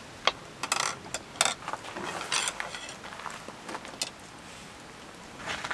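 Chopsticks clicking and tapping against a wooden cutting board as slices of roast beef are picked up: a scattered series of light, sharp clicks.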